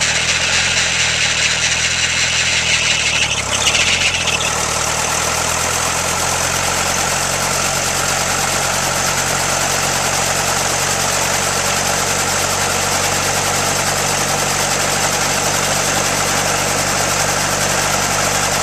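Robinson R22 helicopter's four-cylinder Lycoming piston engine idling on the ground with the rotors turning slowly, a steady low drone. A high hiss stops about four seconds in, and the engine runs on evenly.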